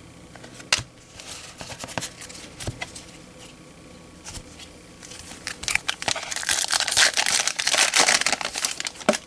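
Foil wrapper of a baseball card pack crinkling as it is handled, thickest and loudest in the last three or four seconds, after a few light clicks and rustles of cards being handled.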